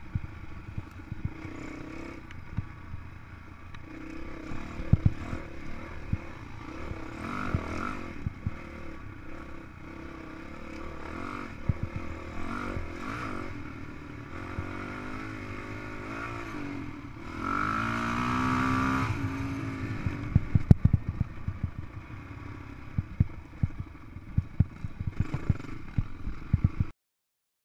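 Honda CRF450X dirt bike's single-cylinder four-stroke engine running on the trail, its pitch rising and falling with the throttle and one long hard rev a little past halfway. Frequent sharp knocks and clatter come from the bike bouncing over rough ground, thickest in the last few seconds before the sound cuts off suddenly.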